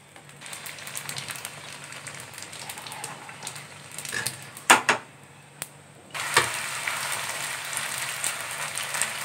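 Small semolina puris deep-frying in hot oil, a steady sizzle as a wire skimmer presses them down so they puff up. There are a couple of sharp clicks about halfway through, and the sizzle is louder in the last few seconds.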